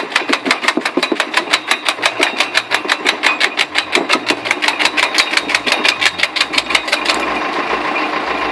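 A homemade wood splitter running with an even, rapid mechanical clatter, about seven beats a second. About seven seconds in it changes to a steadier running noise.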